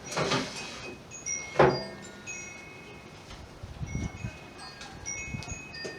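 Wind chimes ringing in the wind, their scattered high notes running throughout. A sharp knock with a short ring about one and a half seconds in is the loudest sound, after a brief rustle at the start, with low rumbling near the middle.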